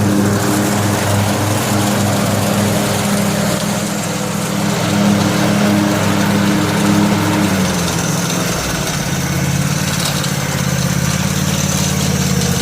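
Husqvarna YTH 1848 XPT lawn tractor's 18 hp Kawasaki twin-cylinder engine running steadily. About eight seconds in its note changes and settles at a different pitch, and a faint high whine joins it.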